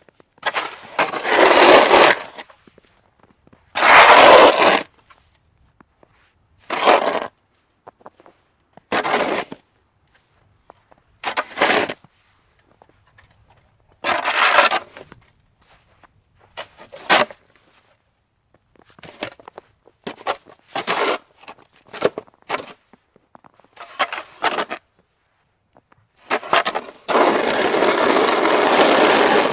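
Snow being shoveled: a shovel blade scraping and pushing through snow in a series of separate strokes at irregular intervals, some of them short and some longer, with one long scrape near the end.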